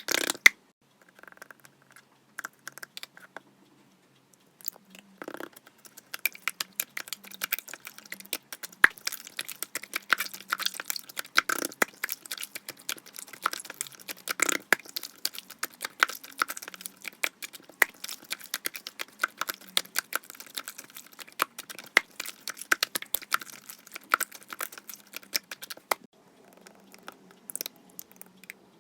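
Slime being pressed, folded and stretched by hand, giving dense crackling clicks and small pops of trapped air. The clicking is sparse at first, thickens a few seconds in, and fades out near the end.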